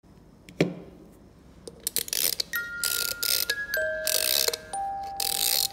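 Musical snow globe being wound by hand at its base: a knock, then repeated bursts of ratcheting clicks from the wind-up mechanism, while its music box starts ringing out single notes about two and a half seconds in.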